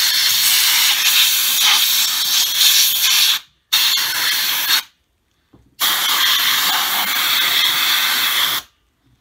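Compressed-air blow gun on an air hose hissing in three long blasts, with short breaks about three and a half and five seconds in, cutting off near the end, as it blows dirt off the engine's coil connectors.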